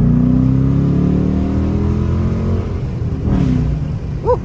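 Dodge Charger Daytona R/T's stock V8 accelerating, the engine note climbing steadily in pitch, then dropping about three seconds in and holding steadier. A brief chirp sounds near the end.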